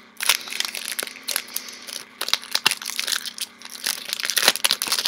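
Foil trading-card booster pack wrapper crinkling and crackling in the hands, an irregular run of crinkles as the cards are handled.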